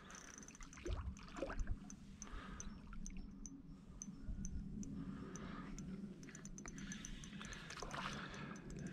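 Spinning reel cranked steadily on a lure retrieve, ticking about three times a second, with a few soft water splashes and swirls from an asp chasing the lure near the surface.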